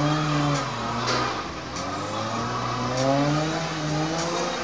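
Toyota 2JZ inline-six in a small pickup tow truck revving hard under load, its pitch rising and falling over and over as it strains against the tow.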